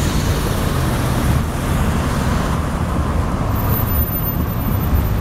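Rush-hour city traffic at an intersection: a van and cars driving past close by over a steady low engine and tyre rumble.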